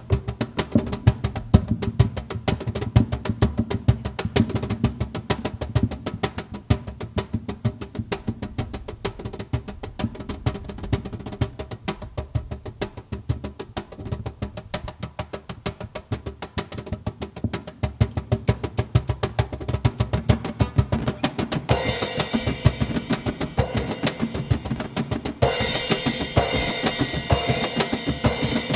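Live instrumental music: a nylon-string classical guitar strummed over a quick, steady beat of hand-played conga drums. About two-thirds of the way through, higher, louder sounds join the mix.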